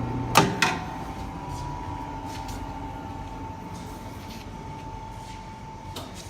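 Raytech 18-inch lapidary slab saw: two sharp clicks less than a second in, after which its low motor hum drops away and the running sound slowly fades. A thin steady whine carries on and stops with a faint click near the end.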